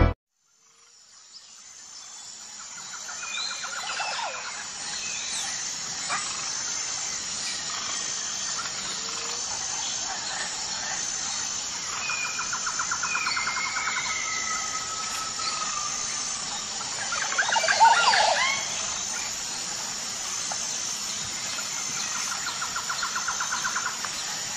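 Forest ambience fading in: a steady high-pitched drone with short chirps repeated at even spacing, under bird trills and calls that glide up and down. A louder cluster of calls comes about three-quarters of the way through.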